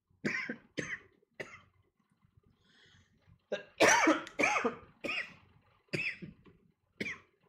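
A man coughing repeatedly: a run of short coughs, about nine in all, with a pause of about two seconds partway through.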